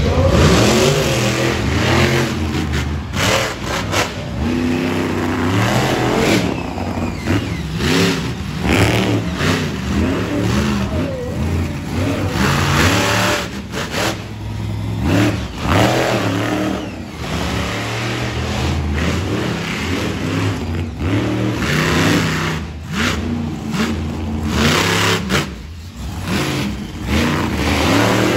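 Monster truck engines revving hard, the pitch climbing and dropping again and again, with repeated sharp bangs and crunches as the trucks drive onto and crush a row of junk cars.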